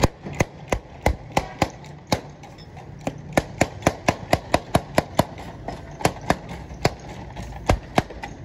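Bottle opener popping the crown caps off glass soda bottles one after another: a quick run of sharp metallic pops, about three a second.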